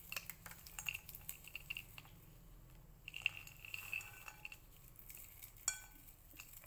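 Roasted peanuts rubbed and stirred by hand in a ceramic bowl to loosen their skins: a faint, constant clatter of nuts clicking against each other and the bowl, with one sharper clink near the end.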